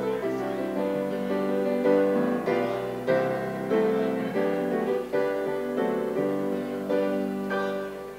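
Solo piano playing slow, sustained chords, a new chord struck about once a second, growing softer near the end as the music dies away.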